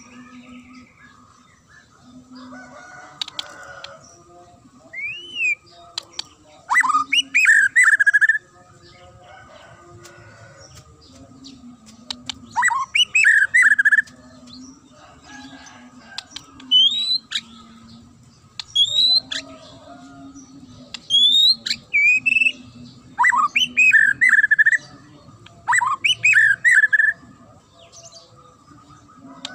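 White-rumped shama singing in loud bursts of rising whistles and sharp, clear chattering notes, about seven phrases with pauses of a second or two between them.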